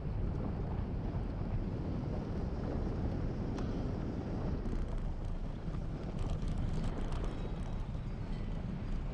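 Steady wind buffeting the microphone of a camera on a bicycle coasting fast downhill, a low rumbling rush, with a few faint ticks.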